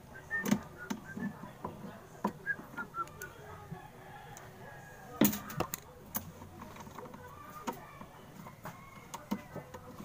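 Scattered small clicks and knocks as hands work the white plastic brake lever loose from a Sharp top-load washing machine's clutch assembly, beside its pulley. The loudest knock comes about five seconds in.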